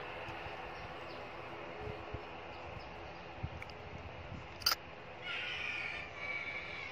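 Distant jet engines of a Batik Air airliner on the runway: a steady hiss. A sharp click comes just past the middle, and a harsh, drawn-out call carries through the last second and a half.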